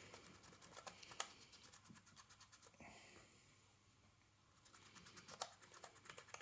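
Faint rubbing and quick clicking as a damp microfiber cloth on a fingertip wipes over the keys of a non-mechanical portable Bluetooth keyboard, one key at a time, pressing each one down. There is a brief pause a little after the middle.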